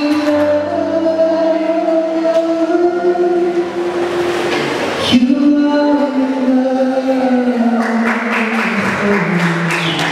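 A man singing a song with long held notes, accompanying himself on an electronic keyboard; the notes change about five seconds in.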